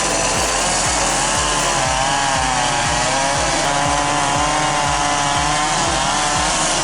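A two-stroke chainsaw running at high revs and cutting through wood. Its engine pitch wavers up and down steadily as the chain bites under load.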